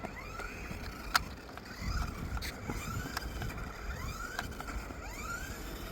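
Toy remote-control car's small electric motor whining up and down in short repeated bursts as it is throttled, with sharp clicks among them.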